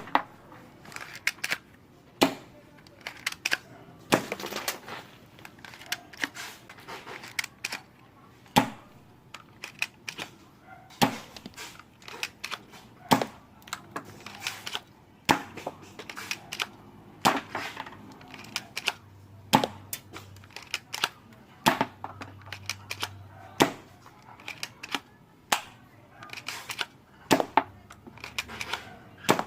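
Spring-powered airsoft gun cocked and fired over and over: a sharp shot about every two seconds, with quieter clicks of the mechanism between shots.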